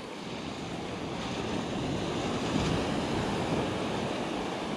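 Small waves breaking and washing up a sandy beach: a steady rush that swells through the middle and eases near the end.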